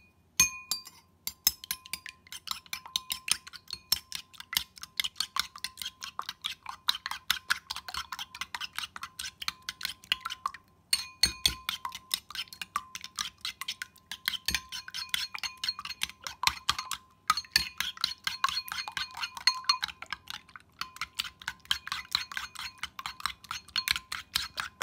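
Metal spoon beating a raw egg in a porcelain bowl: rapid clinking of the spoon against the bowl's sides, stopping briefly three times.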